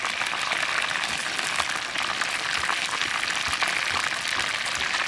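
Chicken wings deep-frying in hot oil in a wok: a steady sizzle thick with small crackles and pops.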